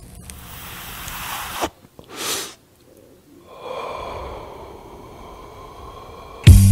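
Breathy sounds: a soft hiss, a short puff about two seconds in, then a longer breathy hiss, like drawing in and blowing out a breath. Loud music with a heavy beat starts just before the end.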